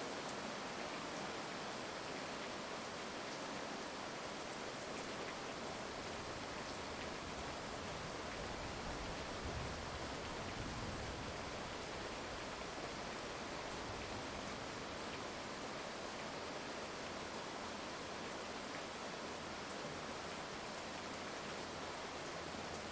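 Heavy rain falling steadily, an even dense hiss of drops, with a soft low rumble of distant thunder about ten seconds in.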